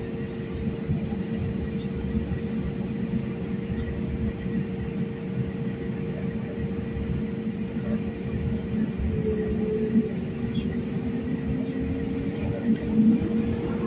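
Airliner cabin noise with the jet engines running steadily at low power, a deep rumble under a held hum. About twelve seconds in, a rising whine begins and the sound grows louder as the engines spool up for the takeoff roll.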